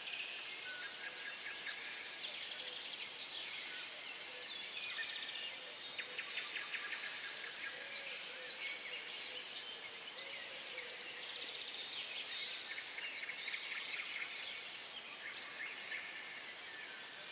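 Morning forest ambience: several songbirds chirping and trilling in overlapping phrases. A very high, thin, steady trill comes and goes in stretches of a few seconds.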